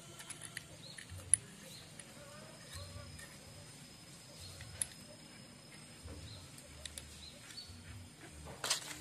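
A few sharp metal clicks as parts and tools are handled on a motorcycle's exposed clutch assembly: one about a second and a half in, another near the middle, and a small cluster near the end.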